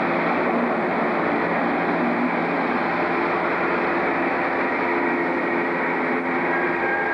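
Diesel-hauled passenger train moving past a station platform: a steady engine note over the continuous running noise of the coaches.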